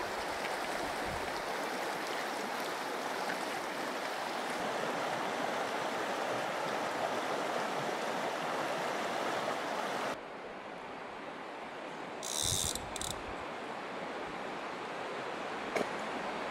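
Mountain river flowing over rocky riffles, a steady rushing of water. About ten seconds in it drops abruptly to a quieter, softer flow, with a short burst of noise a couple of seconds later and a single click near the end.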